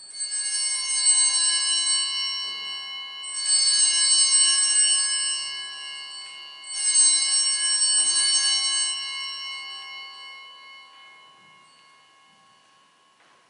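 Altar bells rung three times, each ring a bright cluster of tones that fades slowly, the last dying away over several seconds. It is the ringing at the elevation of the host, right after the words of consecration.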